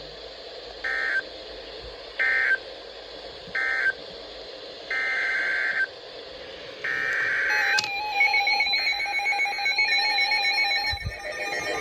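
Emergency Alert System SAME data tones from a NOAA Weather Radio station: three short buzzy data bursts about a second and a half apart, closing out one warning, then two longer bursts of the next alert's header. From about eight seconds in, a steady dual-tone EAS attention signal sounds.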